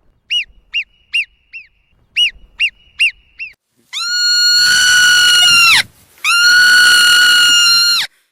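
Animal calls: two runs of four short, high chirps, then two long, steady, high-pitched calls of about two seconds each, each dropping in pitch as it ends.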